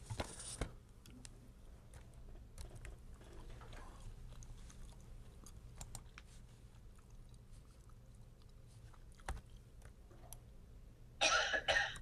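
Laptop keyboard and touchpad clicks, scattered and faint, while text is copied and pasted. Near the end there is a short, louder, crunchy rustle of several quick pulses.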